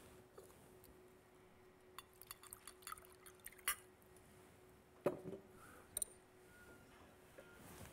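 Scattered light clicks and taps, with a louder knock about five seconds in, from things being handled while a speaker sets up at a lectern. A faint steady hum lies underneath and fades out about halfway through.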